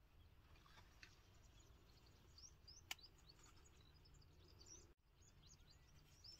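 Near silence with faint, scattered bird chirps over a low background hum. A single sharp click comes about three seconds in, and the sound cuts out for an instant near five seconds.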